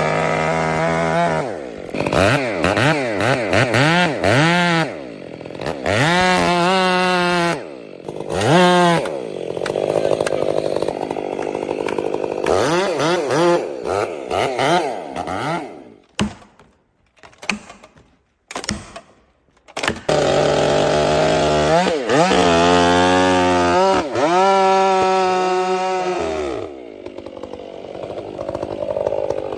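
Chainsaw cutting into a tree being felled, its engine revving up and dropping back again and again. The sound drops out almost entirely for a few seconds about two-thirds of the way through, then the saw revs hard again and settles to a lower run near the end.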